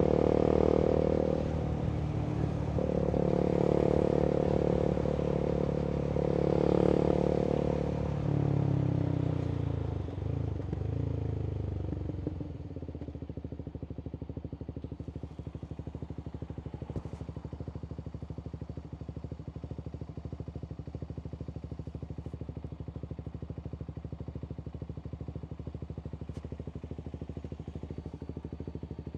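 Voge 300AC single-cylinder motorcycle engine, reflashed for more fuel and breathing through an open full-system exhaust. It revs up and down under way for the first several seconds, drops in pitch as the bike slows, and from about twelve seconds in settles to a steady, evenly pulsing idle.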